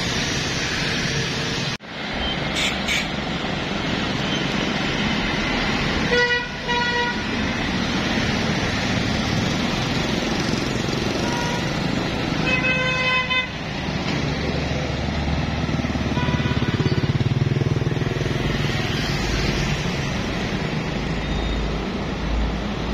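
Road traffic passing close by, with a steady engine and tyre rumble. Vehicle horns honk through it: two short toots about six seconds in and a longer honk around thirteen seconds.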